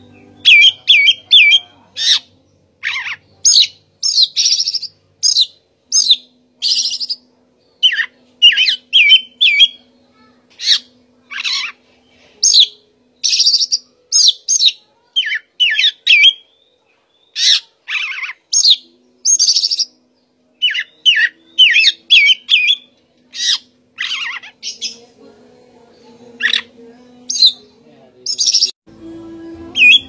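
Male oriental magpie-robin singing: a long run of loud, short, varied whistled phrases, some broken into quick repeated notes, with brief pauses between them.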